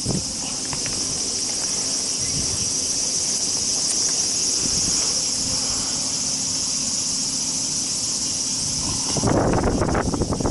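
A steady, high-pitched insect chorus drones throughout. About nine seconds in, louder close-up rustling and handling noise starts as the fish is worked on in the grass.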